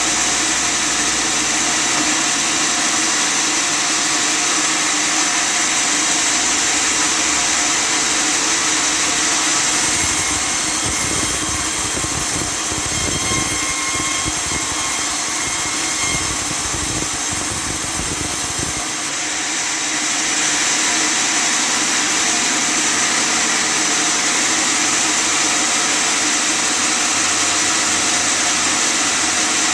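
Custom-made table sawmill running steadily at a loud, even level. From about a third of the way in to about two-thirds, a deeper rumble joins and the higher sound shifts, then it goes back to the earlier sound.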